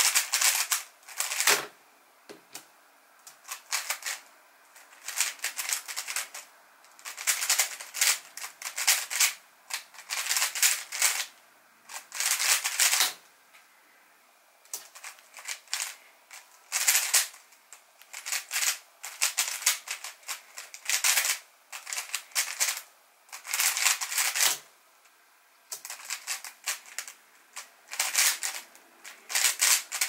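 MoYu WRM v9 Maglev 3x3 speedcube being turned very fast, rapid clacking of the layers in bursts of a second or two with short pauses between them.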